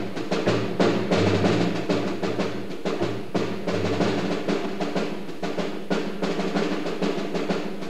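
Small acoustic group playing: quick, repeated snare drum strokes over a plucked double bass line, with a bass drum.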